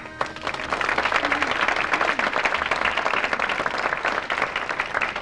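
Audience applauding: dense clapping that starts as the accordion music stops and thins out near the end.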